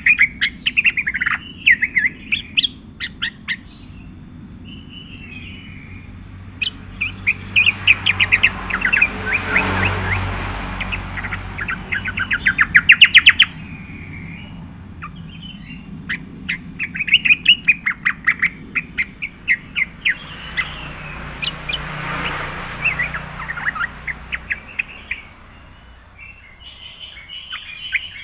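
Yellow-vented bulbul (trucukan) singing in full voice: bursts of quick, chattering chirped phrases separated by short pauses. The loudest run comes about halfway through.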